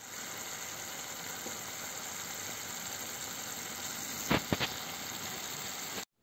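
Tomato and roasted-pepper puttanesca sauce sizzling steadily in a frying pan, with two sharp clicks in quick succession a little past four seconds in; the sizzle stops abruptly near the end.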